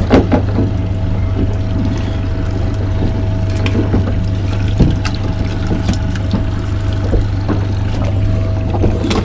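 Boat engine running steadily at low trolling speed, a low drone with a faint steady whine above it. Scattered light knocks and clicks of the fish and net being handled on deck.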